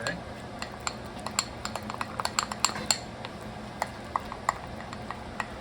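A spoon repeatedly clinking against a bowl as flour and cold water are stirred into a thick paste for thickening soup. The strikes are irregular, coming quickly in the middle and then thinning out.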